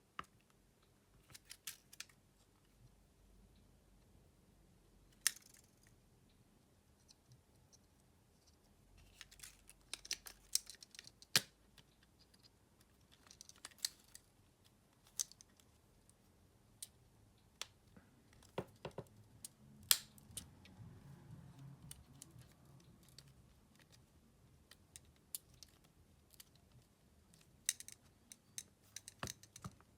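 Faint, irregular small clicks, taps and brief scrapes of hand tools and plastic and metal parts as a Xiaomi Redmi A2 smartphone is taken apart, coming in scattered clusters.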